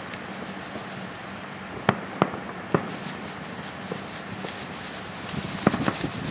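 Fireworks display: aerial shells bursting over a steady background rush. Three sharp bangs about two seconds in, a couple of fainter pops, then a quick run of bangs near the end.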